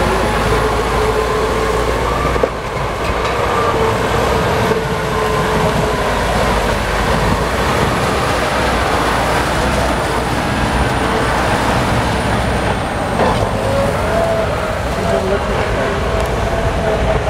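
Crawler tractor engine running steadily under load as the machine works through deep mud, its note drifting slightly and rising a little near the end.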